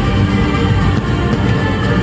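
Music: a loud, dense, sustained instrumental soundtrack with held tones and no speech.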